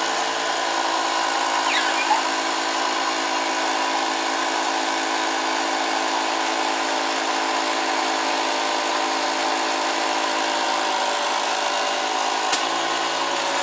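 Battery-powered Ryobi tire inflator running steadily, blowing air at about 46 psi through a ball-inflation needle to float a rubber golf grip onto the shaft.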